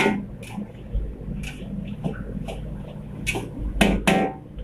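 A metal ladle scraping and clanking against a steel wok as fried rice is tossed and stirred, in irregular sharp strikes roughly every half second, over the low steady rumble of the burner.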